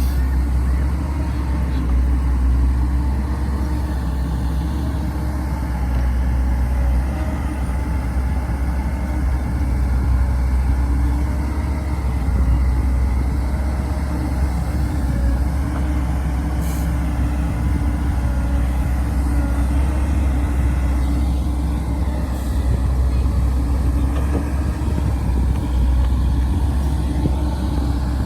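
Heavy diesel engine of construction machinery running steadily at a low, even drone.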